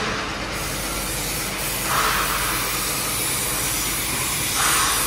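Compressed-air spray gun hissing steadily as paint is sprayed, starting about half a second in and cutting off at the end, swelling louder around two seconds in and again near the end.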